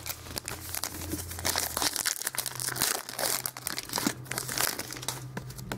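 Trading card pack wrappers crinkling and tearing as packs are opened and cards handled: a continuous run of short rustles and crackles.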